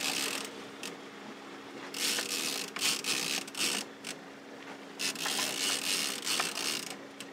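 Fishing reel being cranked in three spells of rapid ratcheting gear clicks while a hooked mahi-mahi is reeled in, with a steady low hum underneath.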